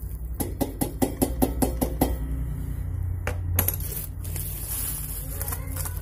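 Gas water heater's pulse igniter sparking in a rapid, regular run of clicks, about six or seven a second, with no flame catching because LPG is not reaching the burner. A couple of louder, separate clicks follow a little past the middle.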